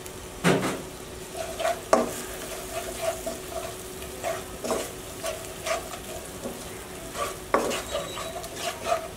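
Wooden spatula stirring fried onions and spice pastes in ghee in a nonstick pan, the food sizzling steadily under irregular scrapes and taps of the spatula against the pan.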